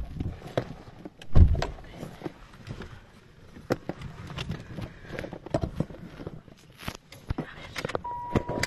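Irregular footsteps and knocks of a handheld phone being carried while walking, with one heavy thump about a second and a half in. A steady high tone comes in near the end.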